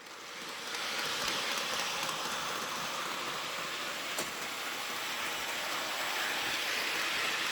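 Lego toy train running along its plastic track, a steady whirring rush that fades in over the first second, with one small click about four seconds in.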